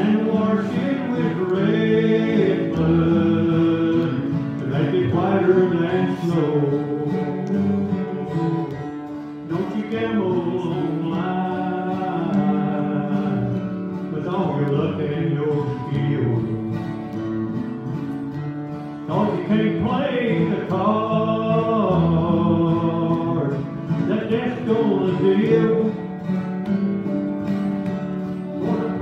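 A man singing a country gospel song, accompanied by strummed acoustic guitar and a second stringed instrument, in phrases with short breaks between them.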